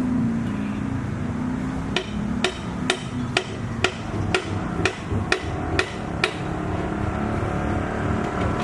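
A hammer striking ten quick, even blows, a bit over two a second, each with a short ringing note, then stopping.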